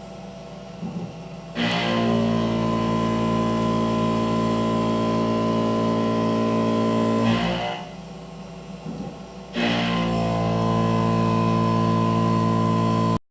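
A Tormach CNC mill's indexable endmill cutting 6061 aluminum at 3500 rpm: a loud, steady, pitched hum while the cutter is in the metal, in two passes of about six and four seconds. Between the passes the sound drops to a quieter, rougher whir, and it cuts off abruptly near the end.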